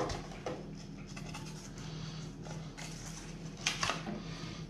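Hands handling a wooden battery tray with straps on a wooden tabletop: scraping and rubbing with light knocks, and a sharper rattle of knocks near the end, over a steady low hum.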